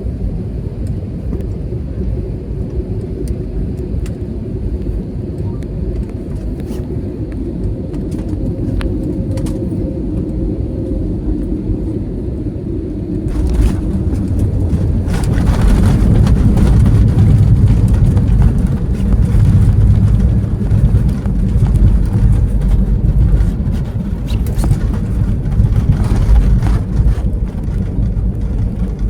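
Airliner cabin noise during landing: a steady low rumble, then about thirteen seconds in a sudden, louder rush of noise that stays loud, the aircraft touching down and slowing on the runway.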